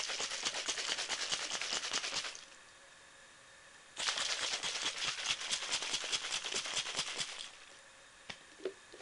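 Baby bottle of powdered formula and water shaken hard to mix it, a rapid rattling slosh in two bouts of a few seconds each with a short pause between.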